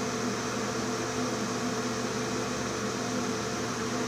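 Steady mechanical hum and hiss of a running appliance.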